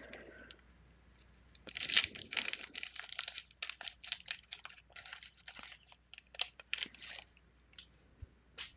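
A 1991 Fleer basketball card pack's wax-paper wrapper being torn open and pulled apart. Dense crackling and crinkling starts about two seconds in and lasts about five seconds, followed by a few light clicks.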